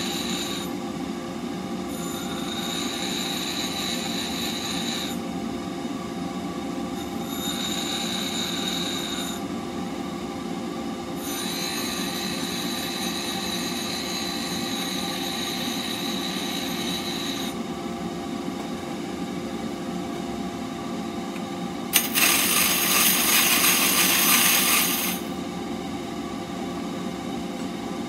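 Bench grinder running with a steady motor hum while a steel blade blank is pressed against the grinding wheel in several passes of a few seconds each, a hissing grind with a high whine. Between passes only the motor hum is left. The loudest, harshest pass comes near the end and lasts about three seconds.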